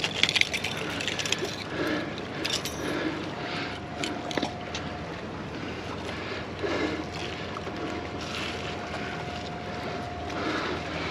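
Steady wash of sea water against shoreline rocks, with a few sharp clicks near the start and a faint steady tone through the middle.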